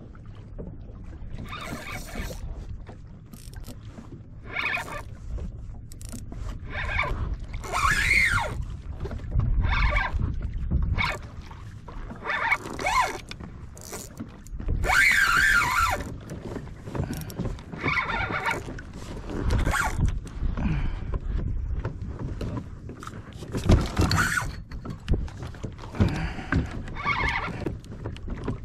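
Fishing line squealing on a spinning rod in repeated bursts, each a wavering, whining tone, as the reel is cranked in pulls while fighting a fish. Wind and water rumble underneath.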